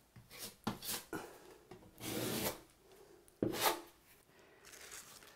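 A metal putty knife drawn across a filled patch on a wall in about five separate scraping strokes, the longest about two seconds in, as the filler is worked flat.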